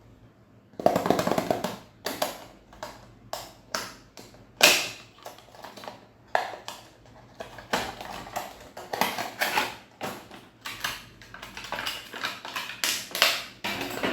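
Irregular rustling, crinkling and light tapping of packaging and stationery being handled and unwrapped, starting about a second in and coming in uneven strokes.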